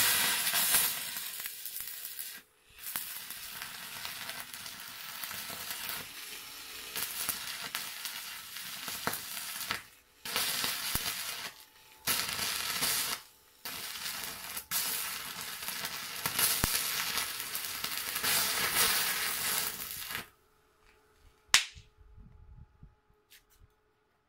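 Stick-welding arc from an ARC160A inverter arc welder, crackling and sizzling for about twenty seconds. The arc drops out briefly a few times and restrikes. Once it stops, a single sharp click follows.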